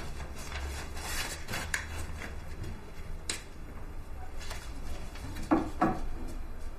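Small handling sounds of a pen and a slip of paper being taken from a shirt pocket and set down for writing: light rustling with a few sharp clicks, and two short, louder knocks about five and a half seconds in.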